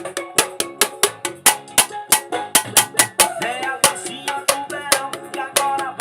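Drum kit played along with a band's song: a steady run of sharp drum and cymbal hits over the band's melody.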